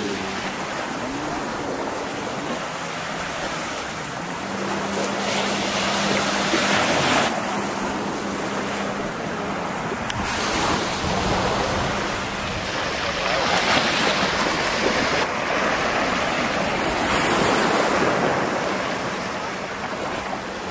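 Small surf washing up on a sandy beach, swelling and easing every few seconds, with a steady low hum through the first half.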